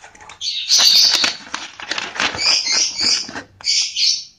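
Paper rustling and crackling as a folded instruction manual is pulled out of a cardboard box and opened out: an uneven run of crackles and swishes with a short lull near the end.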